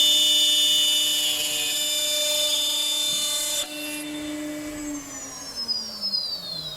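CNC machine spindle running at speed with a high, steady whine, switched off about three and a half seconds in; its pitch then falls steadily as the spindle spins down.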